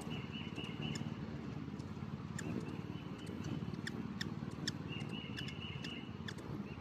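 Hummingbirds chattering, with bursts of high twittering and sharp high chip notes scattered throughout, over a steady low hum.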